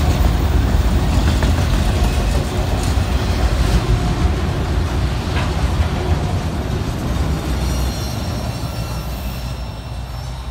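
Autorack freight cars rolling past on the rails: a steady low rumble of wheels and cars with a few clacks, fading as the last car goes by near the end.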